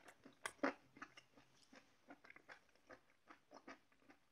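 Someone chewing crunchy deep-fried battered chicken gizzards: a run of irregular crisp crunches, louder in the first second and softer after.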